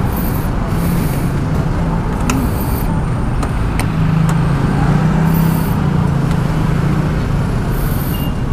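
Steady motor-vehicle engine rumble with a low, slightly wavering hum, and a few light clicks in the middle.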